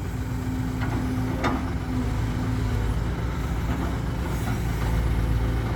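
Heavy ten-wheel dump truck's Isuzu 6UZ diesel engine running steadily at low revs, a low drone with a steady hum over it for the first few seconds.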